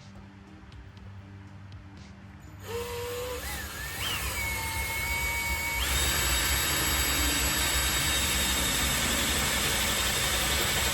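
Cordless Ryobi drill starting about a quarter of the way in, its motor spinning up with a rising whine, then running steadily and getting louder from about halfway as it bores the larger hole through the truck's metal roof.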